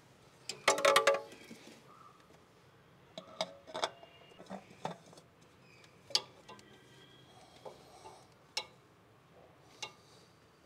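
Metal tools and parts clinking and knocking in the engine bay, with short metallic ringing. A quick cluster of clinks comes about half a second in, then single taps every second or so.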